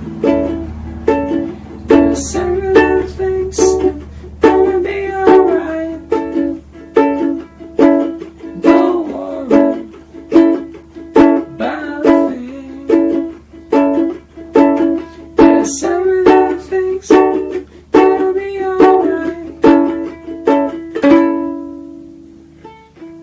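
Ukulele strummed chord after chord in a steady rhythm, about two strums a second; near the end a final chord is left to ring out and fade.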